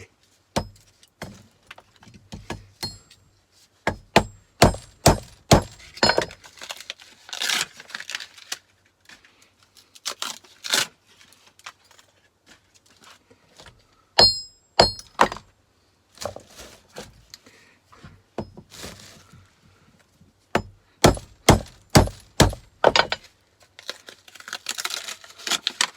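Hammer blows on paper-insulated scrap metal, knocking the paper off. The sharp knocks come in several quick runs, some with a short metallic ring.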